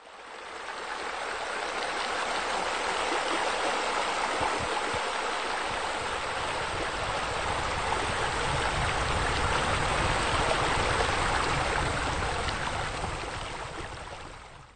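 Steady rush of running water, fading in at the start and out at the end.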